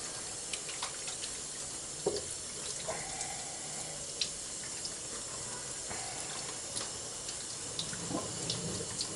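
Kitchen tap running steadily into the sink over a beet-cured salmon fillet being rinsed by hand, with small splashes now and then as the water washes off the salt and sugar cure.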